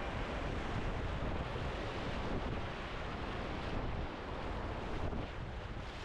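Rushing river whitewater with wind buffeting the microphone: a steady, even wash of noise.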